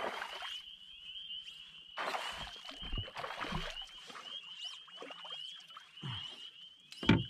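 Water splashing close to a canoe in several short bursts as a hooked fish is played to the landing net, over a steady high trilling chorus. A sharp knock near the end is the loudest sound.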